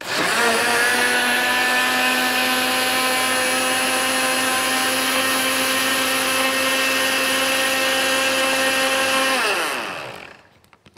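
A Moulinex countertop blender's motor runs at a steady high speed for about nine seconds, blending a liquid milk-and-starch mix. It spins up at the start, then its pitch drops as it winds down and stops near the end.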